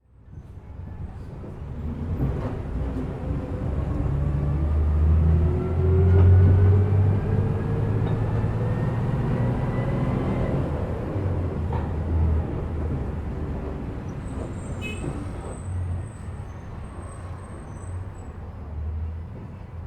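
City bus heard from inside while riding: a low engine rumble with a whine that rises in pitch as the bus speeds up over the first ten seconds, then the engine eases off.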